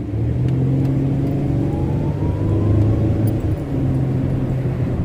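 Car engine running under way, with a tone that rises in pitch as it accelerates, over road and wind noise through an open window.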